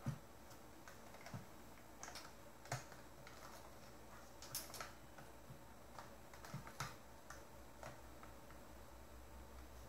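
Faint, irregular clicks and light knocks of a hard drive and its plug-in connectors being handled and fitted to a USB dock, about a dozen in all and unevenly spaced.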